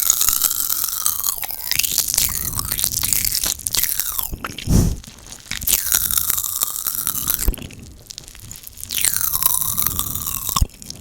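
Close-miked ASMR mouth sounds: wet popping and clicking of the lips, tongue and saliva, in bursts of a few seconds with short pauses between. There is a soft low thump about halfway.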